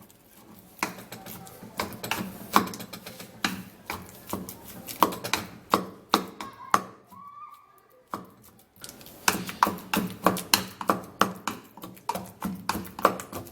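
Pestle pounding soft banana in a small mortar: repeated knocks, spaced out at first, with a short pause about seven seconds in, then quicker strokes at about three a second.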